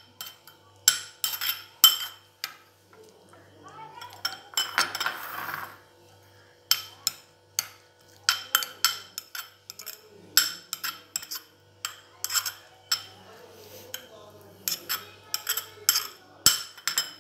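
Steel spoon clinking and scraping against a glass bowl in quick, irregular taps while boiled rice is stirred with food colouring, with a longer scrape about five seconds in.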